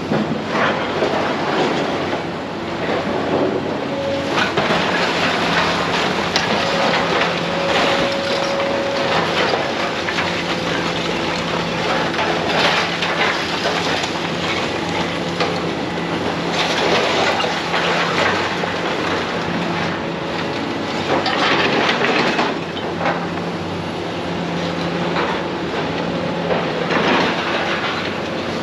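Heavy demolition machinery running steadily while debris crunches, clatters and breaks apart in repeated crashes.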